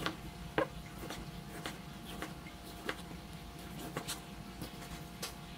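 Steel kitchen knife chopping a tomato on a wooden cutting board: unevenly spaced knocks of the blade striking the board, about two a second, over a faint steady hum.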